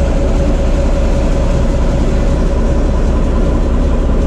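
TEM2 shunting locomotive's diesel engine running steadily at high revs under heavy load on the seventh controller notch, heard from inside the cab with a deep, even rumble and a faint steady whine. It is a load test into a water rheostat after a major overhaul.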